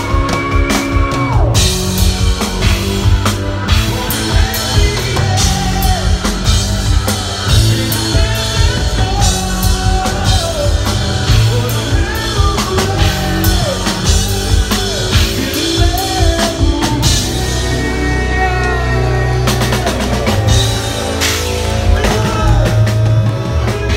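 Progressive metal band playing live, with drum kit, bass and a male lead singer's vocal line over it.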